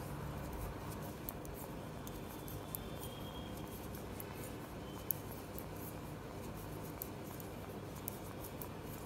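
Knitting needles working yarn: faint, scattered clicks and rubbing as stitches are passed from needle to needle, with one sharper click about five seconds in, over a steady low background hiss.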